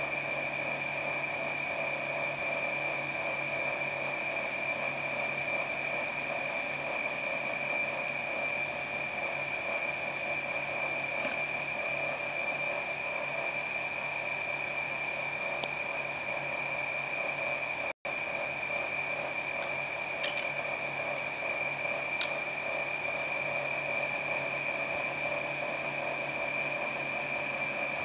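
Steady machine hum with a high-pitched whine over it, unchanging throughout, with a few faint clicks. The sound drops out for an instant about two-thirds of the way in.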